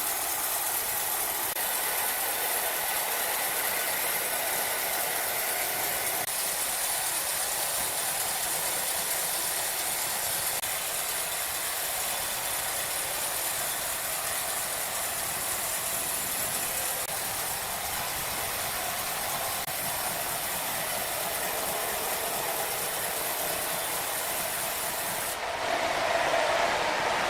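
Sawmill machinery running with a steady hiss. Near the end the sound changes abruptly, becoming louder and duller.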